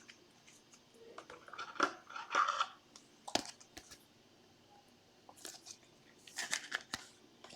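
Trading cards and their plastic sleeves being handled: scattered short crinkles and light clicks.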